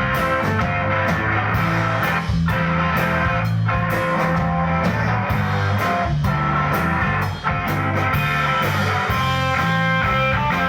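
A rock band playing live, with electric guitars and bass over drums keeping a steady beat.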